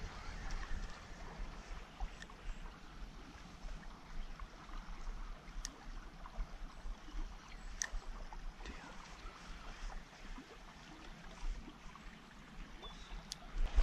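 Creek water flowing, a steady rush, with a few sharp clicks.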